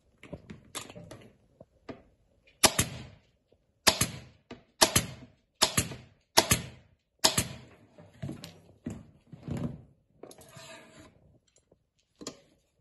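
Pneumatic staple gun firing six times, about one sharp snap a second, driving staples through webbing into a wooden saddle tree. Softer rustling and knocks of handling come before and after the shots.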